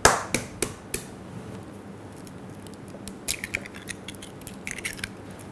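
Egg cracked against the rim of a small glass bowl: one sharp knock and a few lighter taps within the first second. Then two short clusters of small clicks and clinks from the shell and glass, about three and about four and a half seconds in.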